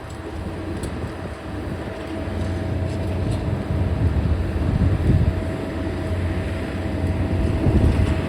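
Heavy demolition machinery running on site: a diesel engine's steady low rumble with a constant whine held over it, swelling slightly around the middle.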